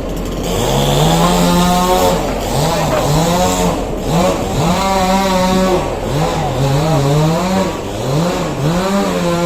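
Two-stroke chainsaw revving repeatedly: the engine note climbs, holds high for a second or so and drops back, over and over, as the throttle is opened and eased while cutting tree branches. It starts up about half a second in.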